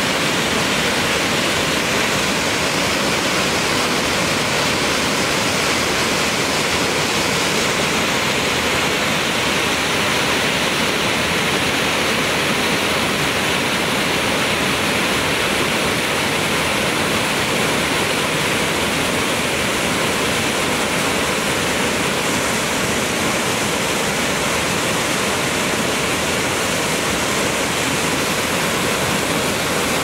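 Waterfall: water cascading over rock in a steady, loud rush.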